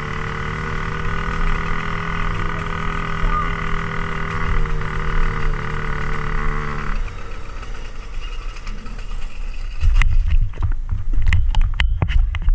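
Dirt bike engine running at a steady, low speed, which cuts out suddenly about halfway through. After it stops there is a low rumble, then a string of knocks and clicks near the end.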